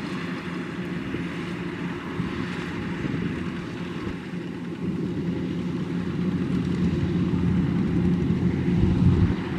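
Kubota DC-105X combine harvester running steadily, its diesel engine and threshing machinery making a continuous hum that grows a little louder near the end.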